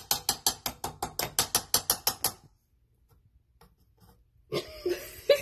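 A metal utensil clicking rapidly against the inside of a metal can as the contents are beaten, about seven strikes a second, stopping abruptly about two and a half seconds in.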